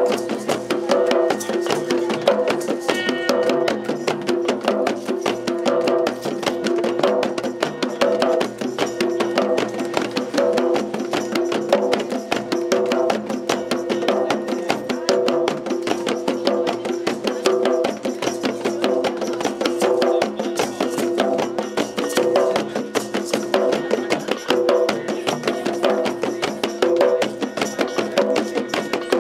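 Hand drums played by hand in a fast, steady group rhythm with other percussion, over steady held notes.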